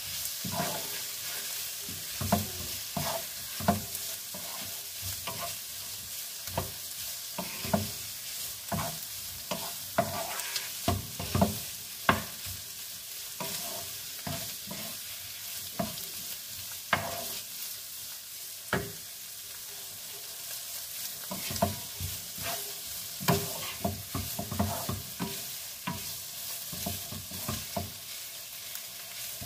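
Shredded chicken sautéing in a frying pan: a steady sizzle, with frequent irregular knocks and scrapes of a wooden spatula stirring against the pan.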